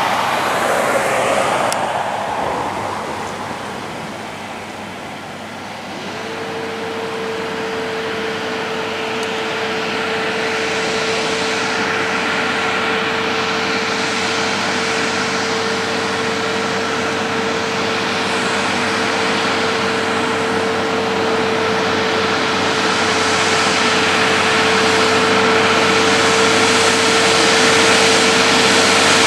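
Heavy-haulage prime mover pulling an oversize load uphill toward the listener, its diesel engine running under load and growing steadily louder, with a steady whine joining about six seconds in. A vehicle passes by in the first couple of seconds.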